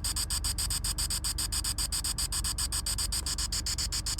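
Spirit box sweeping through radio frequencies: a steady hiss of static chopped into rapid, evenly spaced pulses, about eight a second.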